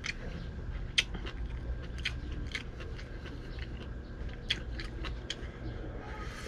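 A person eating close to the microphone: chewing and mouth smacks, with short sharp clicks coming irregularly, about one or two a second, the loudest about a second in.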